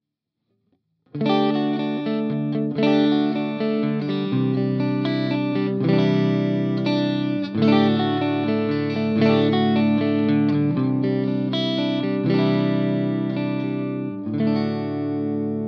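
Electric guitar played through a Mooer Micro PreAmp 012 Fried-Mien, a Friedman-style amp-model preamp pedal. Chords are struck and left to ring, changing every second or two, starting about a second in.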